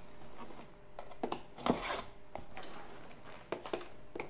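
Cardboard jigsaw puzzle box being opened by hand: rubbing and scraping of card with a few light knocks and clicks.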